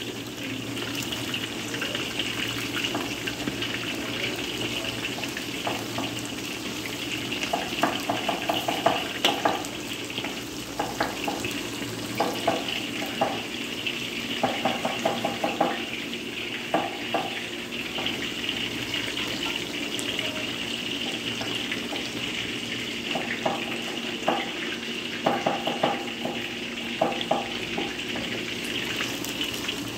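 Battered chicken strips deep-frying in hot oil in a large stainless steel wok, a steady sizzle. A metal slotted spatula clinks and scrapes against the wok in short bouts now and then.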